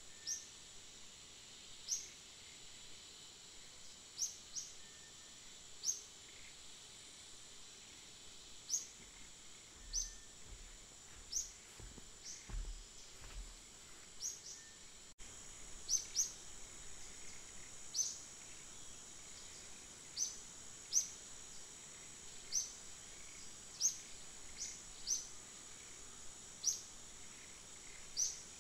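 Forest ambience: a steady high-pitched insect drone, with short falling chirps repeating every second or two.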